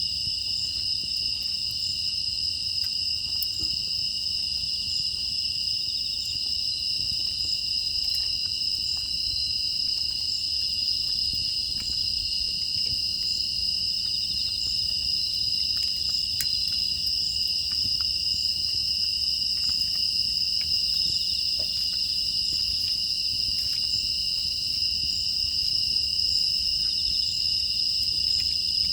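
A chorus of grass insects, crickets among them, trilling steadily in two high, unbroken pitches, with a few faint scattered crackling clicks.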